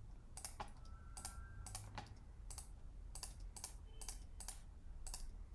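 Irregular clicking of a computer keyboard and mouse: about fourteen short, sharp clicks, two or three a second.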